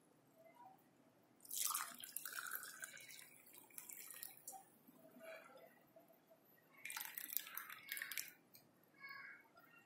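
Hot herbal decoction poured through a strainer into small glass cups: faint trickling and dripping, in two spells, about a second and a half in and again around seven seconds.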